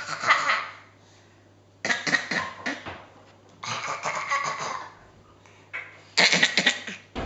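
Four short, raspy cough-like noises, about two seconds apart: the strange noise being remarked on.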